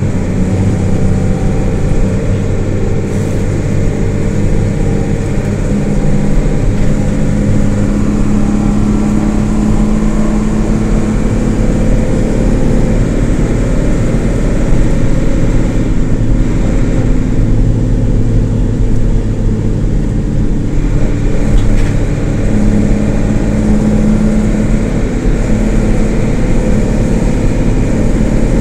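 Isuzu LT133P bus's diesel engine running while the bus is under way. Twice its tone rises and holds stronger for a few seconds, as under acceleration.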